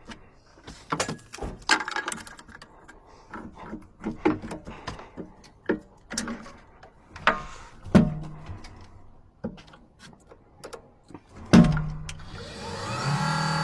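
Clicks and knocks from a car's doors and locks being worked, with two heavier thuds about eight and eleven and a half seconds in. Music fades in near the end.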